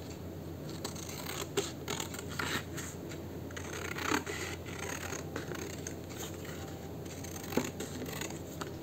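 Scissors cutting paper: a run of short, irregular snips as a shape is cut out.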